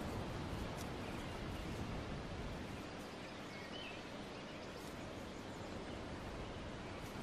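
Steady outdoor ambience, a soft even hiss, with a few faint bird chirps, the clearest nearly four seconds in.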